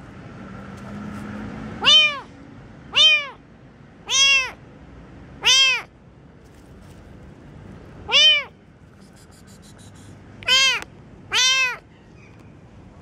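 Baby kitten meowing very loud: seven short, high-pitched meows, each rising and then falling in pitch, coming every second or so with a longer gap in the middle.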